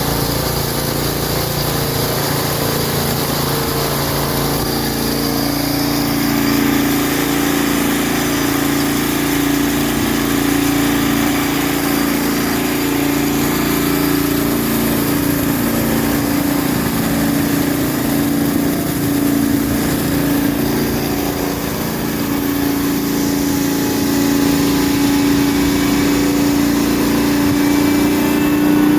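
Engine-driven McCormick-Deering 4-E hammer mill running steadily. The engine's note wavers up and down in slow cycles and rises a little near the end; the owner thinks the engine needs a tune-up.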